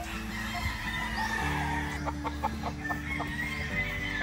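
Gamecock roosters clucking: a quick run of about seven short clucks around the middle, over soft background music with steady held tones.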